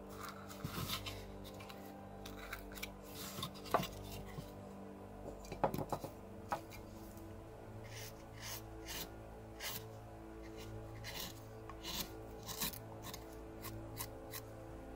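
Carving gouge and knife cutting into cottonwood bark: a run of short slicing and scraping strokes at irregular intervals, with soft background music.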